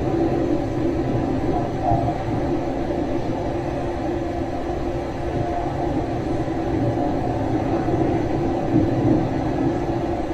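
Steady low rumbling noise with a faint hum in it, unchanging throughout.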